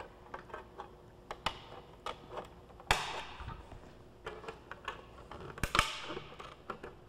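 Red-handled aviation snips cutting thin aluminium sheet: irregular sharp clicks and snips as the jaws close, with the loudest snaps about three seconds in and again near six seconds.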